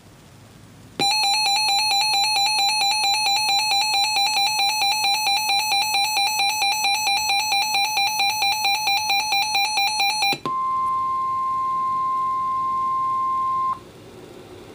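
Weather alert radio sounding a warning: a harsh electronic buzzer alarm pulses rapidly for about nine seconds, then the steady NOAA Weather Radio 1050 Hz warning alarm tone sounds for about three seconds and cuts off, signalling that a warning is about to be read.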